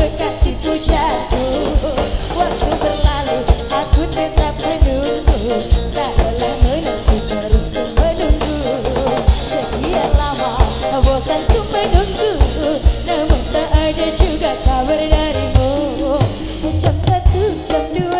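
Live band music: a woman singing over electric guitars, bass and a drum kit keeping a steady beat.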